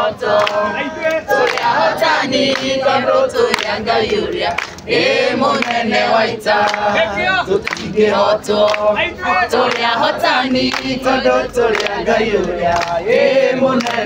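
A crowd of men and women singing a song together, with hand-clapping in time.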